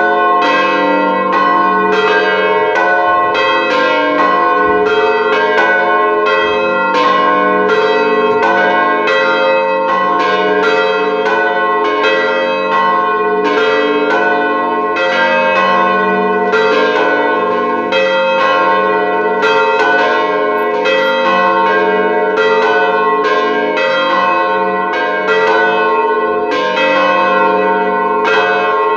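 Three swinging church bells, cast by the Huta Mała Panew foundry and tuned to f', a-sharp' and c'' (900 kg, 500 kg and 350 kg), ringing together. Their strokes overlap in an uneven stream of two to three a second, each tone hanging on under the next.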